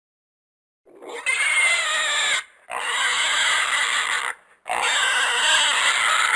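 Three loud animal calls in a row, each about one and a half to two seconds long, with short silent gaps between them.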